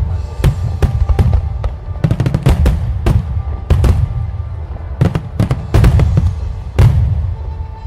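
Fireworks display: aerial shells bursting in a fast, irregular string of sharp bangs and crackles over a deep rumble, with music underneath.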